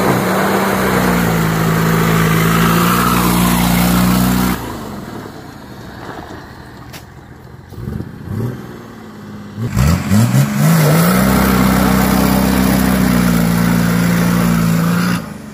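Nissan Patrol's engine held at high revs while a wheel spins on ice, in two long pushes of about four to five seconds each. Between them the revs drop, then rise in a few quick blips before holding high again. Only one wheel is spinning: four-wheel drive is not engaged and there is no front locker.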